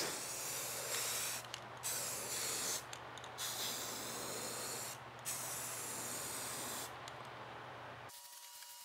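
Aerosol spray paint hissing out of the can in four bursts of about a second each, with short pauses between them, then a fainter spray before it cuts off near the end.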